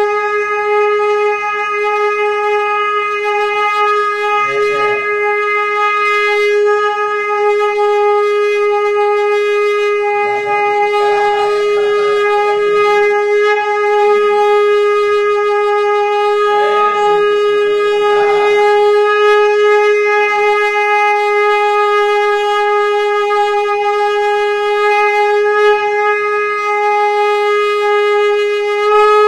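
Conch shell (shankh) blown in one steady held note, bright with overtones, without a break.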